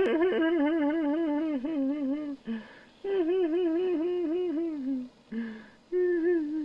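A voice crying in long wavering wails, the pitch wobbling about four or five times a second, with short gasping breaths between them: a cartoon boy sobbing. Three wails, the third starting near the end.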